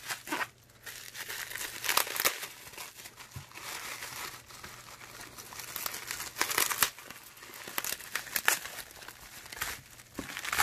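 Plastic bubble wrap crinkling and rustling as a phone is unwrapped from it by hand, with louder crackles a few times.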